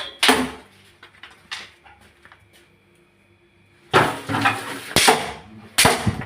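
Pots and kitchenware clattering as they are knocked and shifted during a hunt for a rat: a few sharp knocks, a quieter pause, then a rapid flurry of hard knocks and scraping in the last couple of seconds.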